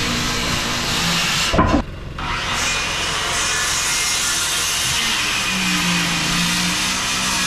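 Circular saw cutting through framing lumber. The cutting noise breaks off briefly with a knock about two seconds in, then carries on steadily.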